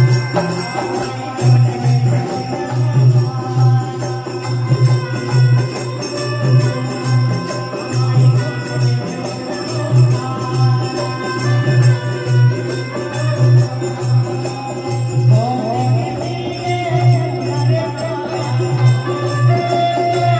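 Devotional jagran music with a steady pulsing beat and sustained melody notes over it.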